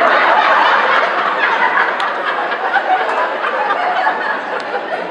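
Audience laughing loudly, a dense crowd laugh that swells in at once and eases off slowly.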